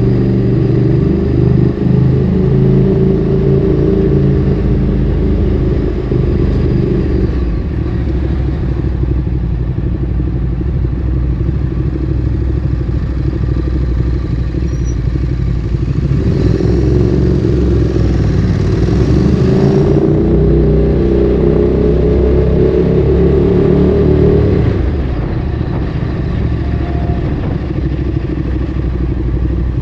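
Ducati Streetfighter 848's 849 cc L-twin running through a Termignoni exhaust while riding. The engine note grows stronger about halfway through and eases off near the end.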